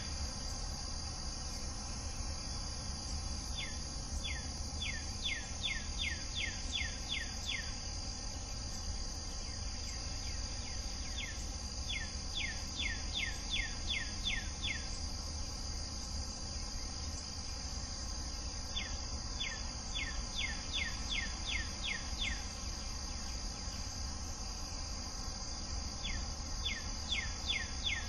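A steady, high-pitched insect chorus of crickets or similar insects. Over it a songbird repeats a phrase of about ten quick downslurred whistles every seven or eight seconds.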